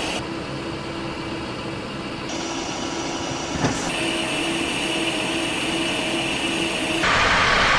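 Steady noise of a Cessna Citation XLS jet running on the ground, heard in several short clips spliced together, with a faint tone repeating a couple of times a second. About seven seconds in it jumps abruptly louder.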